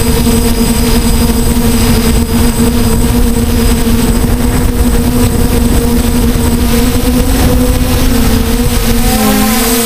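DJI F450 quadcopter's four electric motors and propellers whining at a steady pitch, loud and close as heard from the onboard camera, over a rushing noise. About nine seconds in, the pitch wavers and splits as the motors change speed.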